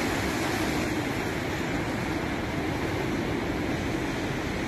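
Jet airliner's engines heard from the ground as a steady, even roar, with the hiss of surf and wind underneath.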